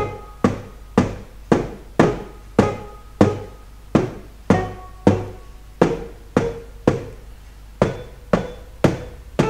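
Electric piano notes triggered by a vibraphone mallet striking the bars of a Pearl Malletstation EM1 MIDI mallet controller, about two strikes a second, each note sounding and then decaying. The pitch changes every few strikes as each bar is hit at its top, centre and bottom to check that it gives the same response.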